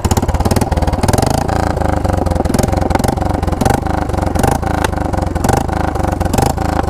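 Royal Enfield Bullet 350's single-cylinder engine idling through a Kawasaki ZX-10R silencer mounted on a C-pipe: a loud, steady train of exhaust pulses.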